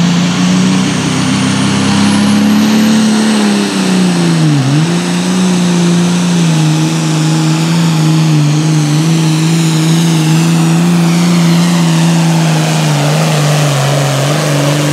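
Super Farm class pulling tractor's turbocharged diesel engine running hard under load while pulling the sled. Its pitch climbs over the first few seconds, dips sharply about five seconds in, recovers quickly and then holds steady.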